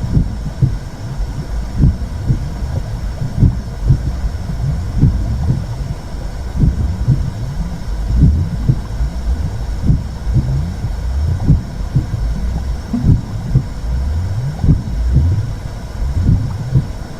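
Womb sound for calming a baby: a steady low rumble with soft thumps recurring about once a second, like a heartbeat heard from inside the belly.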